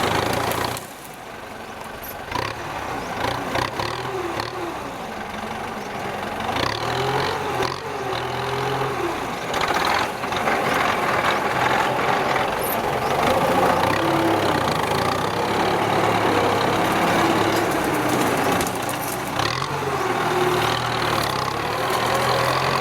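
Tractor diesel engine running under ploughing load, its pitch wavering up and down as the engine speed changes, with a few short knocks or clanks along the way.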